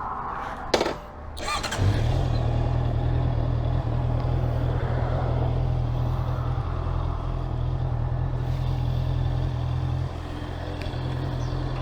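A couple of sharp knocks, then a Honda CB650R's inline-four engine starts about two seconds in and idles steadily.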